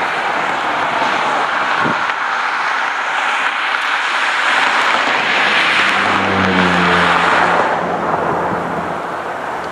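Steady rushing vehicle noise that swells to its loudest around six to seven seconds in, with a low engine hum joining briefly near the peak before fading.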